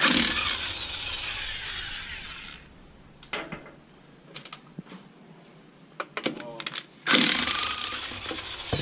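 Cordless impact wrench hammering as it spins lug nuts off a car's rear wheel, in two runs: one at the start lasting about two and a half seconds, and another starting about seven seconds in. Between them come a few light clicks.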